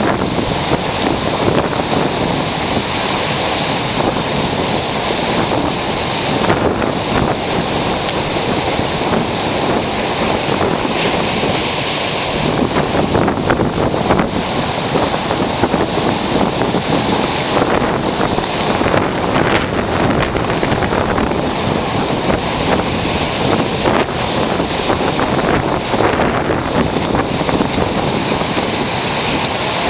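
Ocean surf breaking on the shore: a continuous wash of water that swells and eases.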